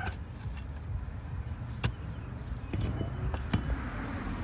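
A few sharp strikes of a long wooden-handled chopping tool into tree roots and soil, the clearest about two seconds in and again near the end, over a steady low rumble.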